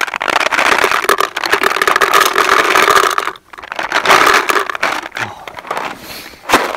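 Paintballs poured into a plastic paintball hopper: a dense rattling clatter of balls against the hopper shell and each other. It breaks off briefly about three and a half seconds in, resumes more thinly, and ends with a single sharp click.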